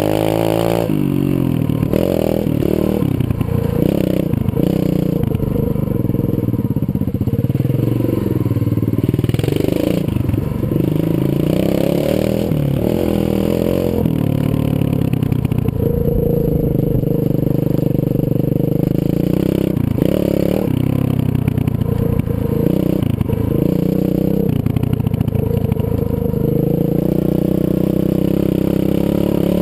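A Zongshen 125cc pit bike's single-cylinder four-stroke engine revving up and down as the throttle is worked while riding, with a few short stretches held steadier. Heard close up from a helmet-mounted camera.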